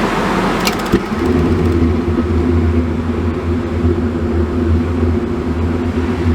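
Dometic RV furnace cycling on: a few sharp clicks, then about a second in the blower fan motor starts and runs with a steady hum, over constant highway road noise. The furnace is being retried to see whether it lights and stays lit.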